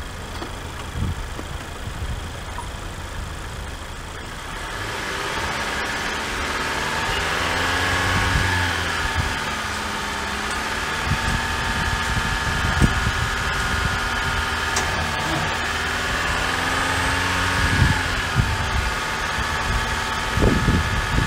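A 2014 Honda four-cylinder car engine idles, then is revved up about four and a half seconds in and held at high revs, rising and settling a little. It is supplying charge through jumper cables to a semi truck's flat batteries. A few low thumps come near the end.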